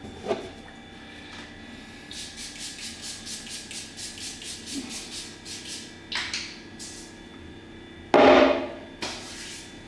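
Hands rubbing at the face and beard: a quick run of short rubbing strokes, about four a second, lasting a few seconds, with a louder burst of noise near the end.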